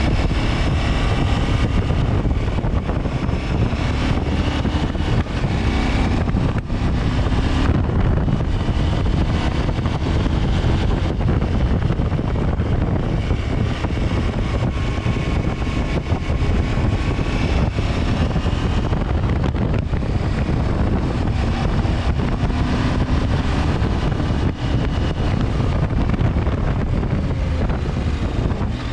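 KTM 890 Adventure's parallel-twin engine running steadily under way, its note drifting a little in pitch with the throttle, under heavy wind noise on the microphone.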